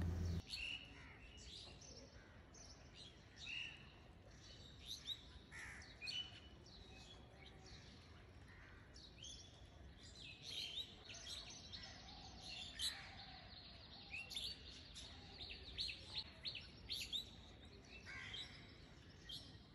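Birds chirping faintly, many short scattered calls.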